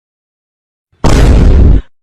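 An explosion sound effect: after a second of silence, a sudden loud blast with a heavy low boom that lasts under a second and dies away.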